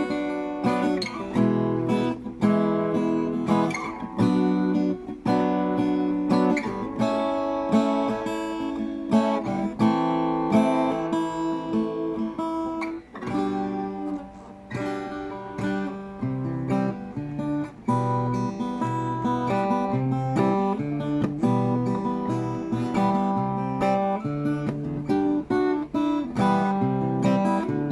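RJ Manila guitar played unplugged, without an amplifier: acoustic guitar chords and picked notes sounding continuously, with frequent sharp note attacks.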